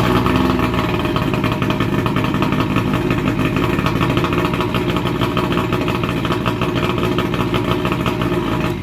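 1973 Evinrude 65 hp two-stroke outboard motor, just restarted and catching at once, running steadily, then shut off near the end, its sound falling away.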